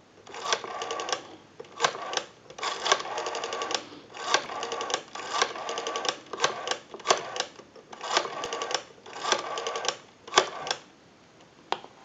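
Western Electric 302 rotary dial being dialed digit after digit: after each pull the dial spins back, giving a short run of evenly spaced clicks as it sends its pulses. The runs repeat with brief pauses between digits and stop about a second before the end.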